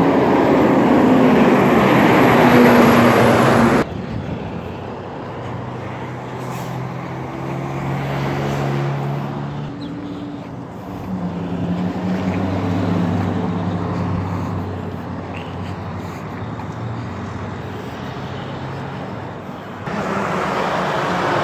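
Heavy diesel trucks and road traffic passing on a city street. The engine noise is loud for the first four seconds, drops abruptly to a quieter hum whose pitch rises and falls, and jumps back up near the end.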